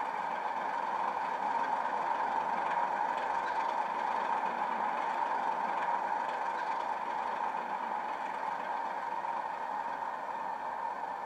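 Model Class 37 locomotive's DCC sound decoder (Coastal 37/0 sound file on an ESU LokSound 5) playing a steady English Electric diesel idle through its small fuel-tank and under-fan speakers, fading slightly towards the end.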